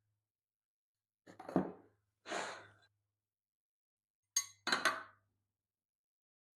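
Wooden boards being handled and set down on a workbench: short knocks and clatters, two in the first half, then a quick double knock about four and a half seconds in.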